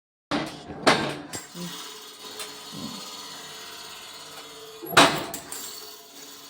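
Sheet-metal fabrication work: loud sharp clanks of metal just after the start, about a second in and again about five seconds in, with a steady tool hum between them.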